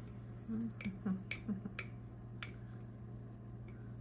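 A glass jar and a utensil click against each other about four times, sharp and short, as thick sourdough starter is scraped out of the jar. A few brief low sounds come in the first second or two.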